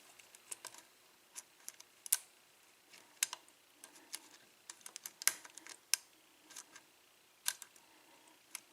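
A lock pick working the pins of an Ilco six-pin pin-tumbler lock during single-pin picking: faint, irregular small metallic clicks and ticks as the pick lifts the pins.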